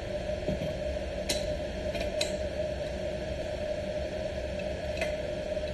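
Four light metallic clicks as a crescent wrench works the brass regulator nut tight onto an acetylene tank valve, over a steady background hum.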